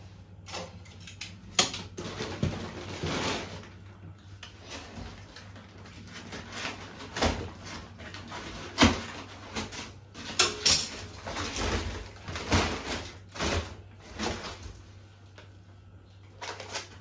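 Off-camera handling noise of groceries being fetched: scattered knocks and rustling, irregular, with one sharp knock the loudest about nine seconds in.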